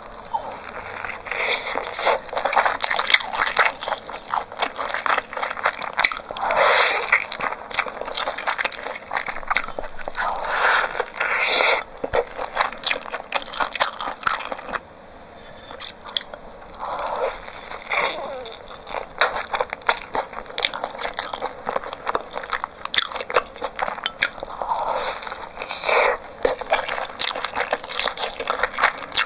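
Close-miked eating sounds of inari sushi, fried tofu pouches of rice with creamy and shredded toppings, being bitten and chewed: a dense run of small wet clicks and crackles, with louder stretches every few seconds.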